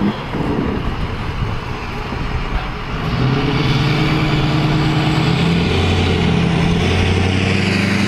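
Snow-plow truck driving across a snowy parking lot: engine and tyre noise, with a steady low hum that comes in and grows louder about three seconds in.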